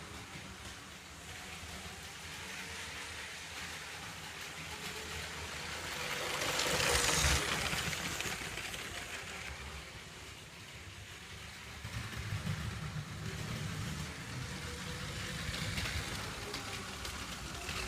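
Motorized LEGO 60098 Heavy Haul Train running on plastic track: a steady motor hum and wheel rumble. It swells loudest about seven seconds in, as if passing close, and rumbles again from about twelve seconds.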